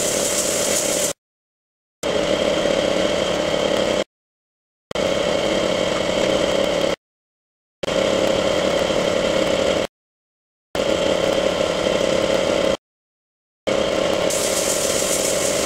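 A steady machine hum chopped into pieces about two seconds long, each broken off by a short stretch of dead silence, about every three seconds. A high hiss of air joins it at the very start and again near the end.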